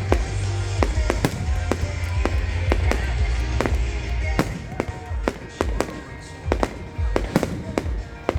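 Fireworks going off: a rapid run of sharp bangs and crackles over a deep rumble, with music playing. The rumble eases about halfway through, leaving more spaced-out bangs.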